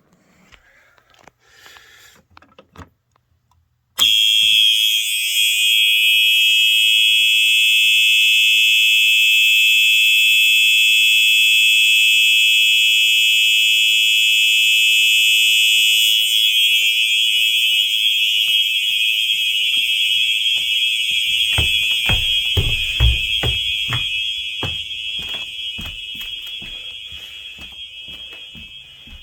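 Simplex 4903 fire alarm horn sounding a loud, continuous electronic tone, set off by a manual pull station. It cuts in sharply about four seconds in after a few faint clicks, turns rougher midway, and fades steadily near the end while low thumps sound under it.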